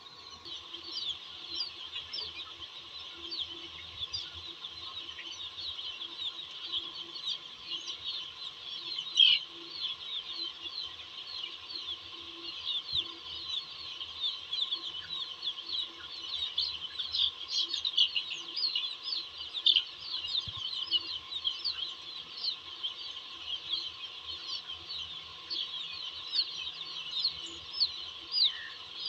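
A large flock of young chicken chicks peeping nonstop, with many short, high, falling calls overlapping each other. One call stands out louder about nine seconds in.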